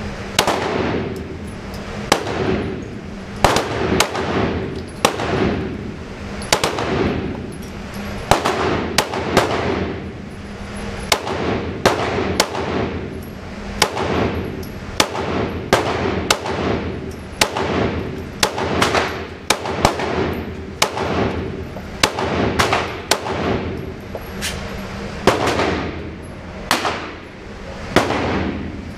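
Repeated 9mm handgun shots on an indoor firing range, Glock 19 fire mixed with shots from neighbouring lanes. Each is a sharp crack with a reverberant tail, coming roughly one or two a second and some louder than others.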